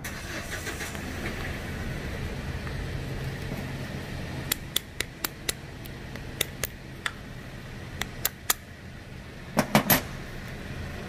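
Metal parts and tools being handled: a string of sharp metallic clicks, then three louder knocks in quick succession near the end, over a steady low hum.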